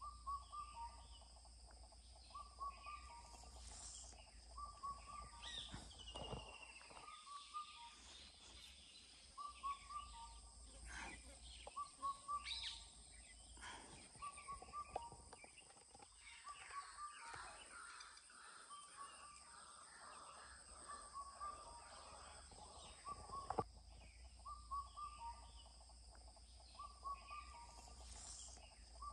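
Wild birds calling. One bird repeats a short call about every one and a half seconds, breaks off for several seconds midway, then resumes, while other birds call now and then. A faint steady high-pitched hum runs underneath.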